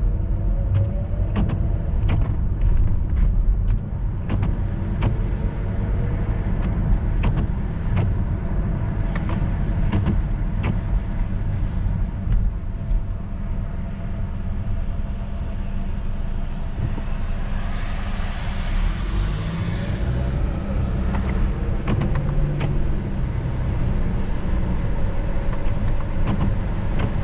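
Interior of a car driving on rain-wet streets: steady low road and engine rumble, with scattered light ticks and taps. Past the middle, a hiss swells for a few seconds, like tyres on wet pavement.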